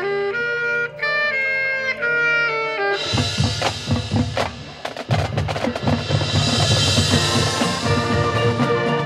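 High school marching band playing its field show: a held, stepwise wind and brass melody for about three seconds, then the percussion enters with heavy drum hits and cymbals under the full band.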